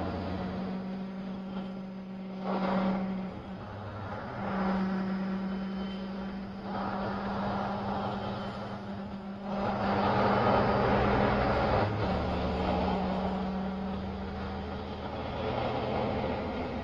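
Interior noise of a regional bus driving: a steady engine and drivetrain hum with road noise. The hum breaks off briefly twice, and the noise swells for a couple of seconds about ten seconds in.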